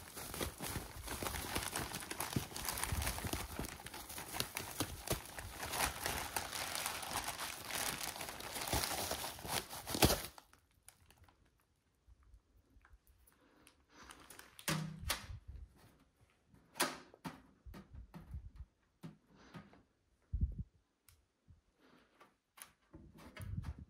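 Packaging being crumpled and torn: dense crinkling for about ten seconds that stops abruptly. Then scattered clicks and a few light knocks as things are handled.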